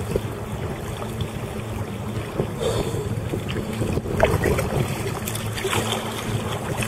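Wind buffeting the microphone over choppy water lapping against a sea kayak's hull, with several short splashes partway through.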